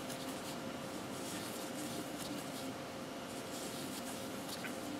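Soft rustling and scratching of a crochet hook pulling yarn through stitches, over a faint steady hum.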